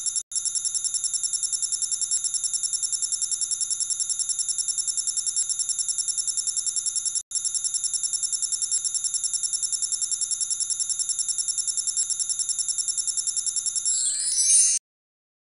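Electronic ringing sound effect: a rapid, even trill of high ringing pulses, like a telephone ringer. It breaks off twice for an instant and ends in a brief louder flourish before cutting off suddenly near the end.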